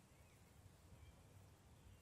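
Near silence: faint woodland ambience with a low rumble and a few faint, short bird chirps.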